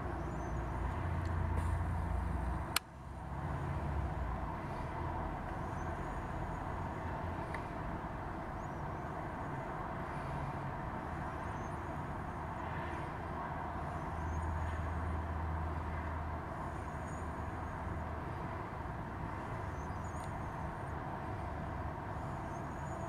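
Steady outdoor background of distant road traffic, its low rumble swelling twice as vehicles pass, with faint high bird chirps now and then. A single sharp click about three seconds in.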